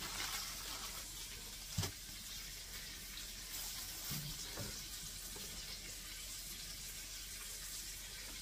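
A spoon stirring potato salad in a plastic bowl, soft and wet, over a faint steady hiss, with one sharp click a little under two seconds in.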